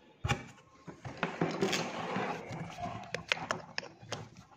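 Hands handling a plastic plug-in wire connector against the alarm unit and a cardboard box: a sharp click about a quarter second in, rustling and scraping, then a few quick clicks near the end as the connector is fitted.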